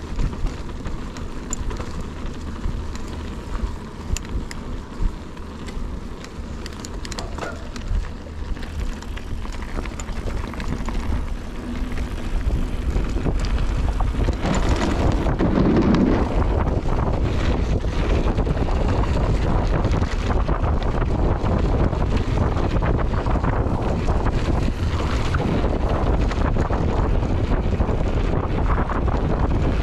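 Wind rushing over an action camera's microphone on a mountain bike ride down a dirt trail, with scattered clicks and knocks in the first several seconds. It gets louder from about halfway through as the ride picks up.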